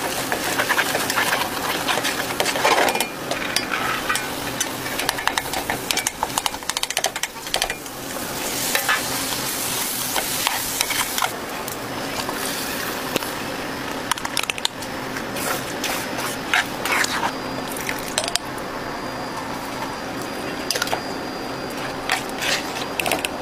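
Minced beef sizzling in a large stainless steel stockpot while a wooden spoon stirs it, with frequent scrapes and knocks of the spoon against the pot.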